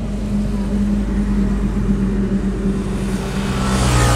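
Steady engine drone with a low hum. Near the end a second engine swells loud and close, as a vehicle passes.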